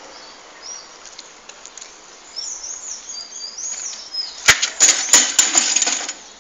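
Bicycle and rider crashing onto asphalt during a failed trick: a quick run of loud clattering knocks lasting about a second and a half near the end. Birds chirp in the background before it.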